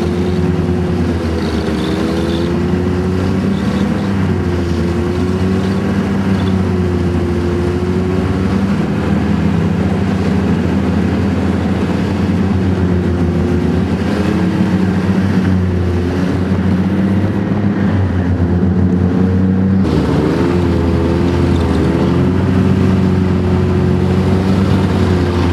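Snowmobile engine running under way, loud and continuous, its pitch rising and falling gently every few seconds with the throttle, heard from aboard the moving machine.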